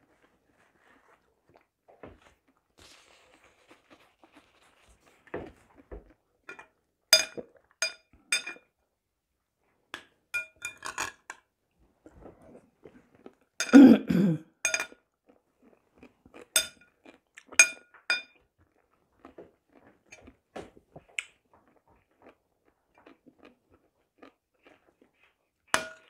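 Metal spoon clinking against a glass bowl, in scattered single taps and short runs, each with a brief ring, between soft chewing sounds. About halfway through there is a louder, lower sound from the eater's mouth or throat.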